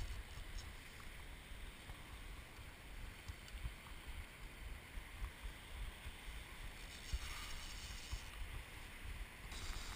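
Shallow seawater sloshing and lapping, with wind buffeting the camera microphone.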